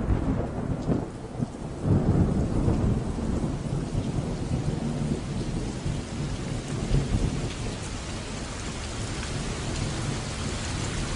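Steady rain with low rolling thunder; the rumbles swell near the start and again about two seconds in, then settle into an even rain hiss.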